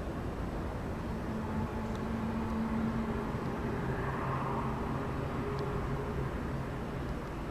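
Unexplained low droning: a few steady, held tones over a dense rumble, swelling briefly about halfway through, the kind of 'strange sound' reported in the night sky.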